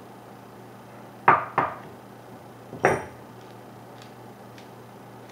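Small metal parts of a Tippmann 98 paintball gun clinking together as they are handled: two quick clinks, then a third about a second later that rings briefly.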